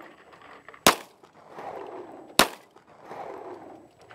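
Handgun fired twice, about a second in and again a second and a half later: sharp single shots.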